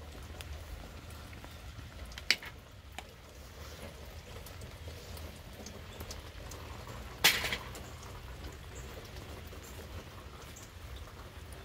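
Steady light rain with scattered drip ticks, and two sharp louder taps about two seconds and seven seconds in, likely drops hitting near the microphone.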